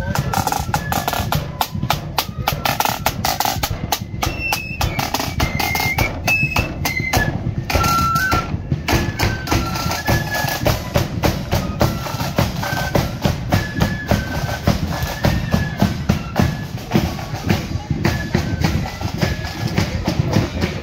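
Marching flute band playing a tune: flutes carry a stepping melody over rapid side-drum strokes and a bass drum beat.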